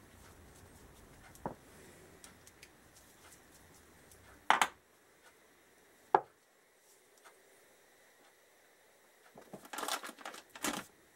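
Small steel sprocket nuts clinking as they are picked up and set down on a workbench: a few separate clicks, then a quick cluster of clicks near the end.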